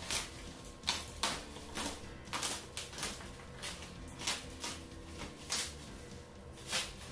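Plastic wrapping on a TV box crinkling and rustling in short, irregular bursts, over faint background music.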